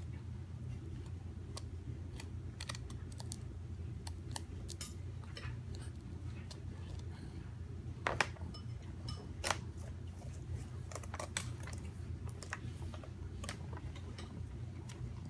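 Crackers being chewed: irregular small, crisp crunches and crackles, a few louder ones about eight and nine and a half seconds in, over a steady low hum.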